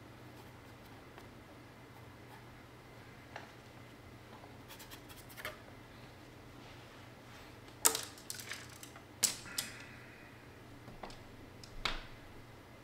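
Paintbrush handles clicking and clacking together as brushes are set into a brush holder: a handful of sharp knocks, the loudest two about eight and nine seconds in, over a faint steady hum.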